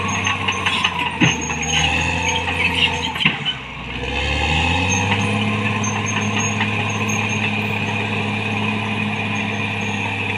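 Caterpillar D6R XL bulldozer's six-cylinder diesel engine running under load, with several sharp knocks in the first few seconds. About three and a half seconds in the engine briefly drops, then revs up over a second and holds steady at the higher speed.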